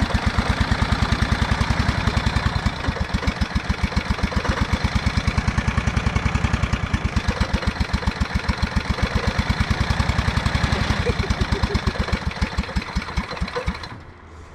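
Small lawn tractor engine running with its oil drained, a steady beat of firing pulses that slows and dies about fourteen seconds in.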